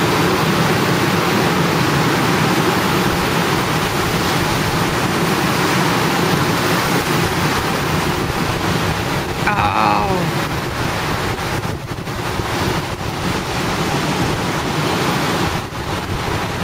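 Ocean surf breaking on a sandy beach, a steady wash of noise, with wind buffeting the microphone. About halfway through, a brief sound glides down in pitch.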